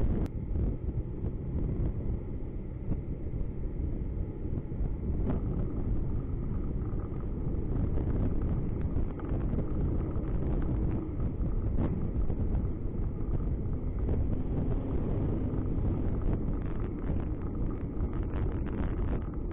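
Steady low rumble of a car driving along a road, engine and tyre noise heard from inside the cabin through a dashcam's microphone.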